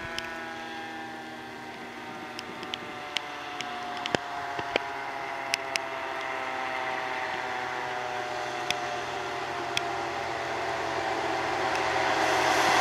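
2008 HME Ahrens-Fox fire engine approaching on a wet road: a steady drone made of many tones that slowly falls in pitch, with scattered sharp clicks. Near the end it grows louder as the tyre hiss and spray build.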